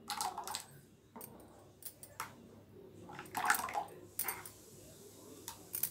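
Thick mango juice poured from a ladle in a thin stream back into a bowl of juice, with soft splashes and drips and a louder splash about three and a half seconds in.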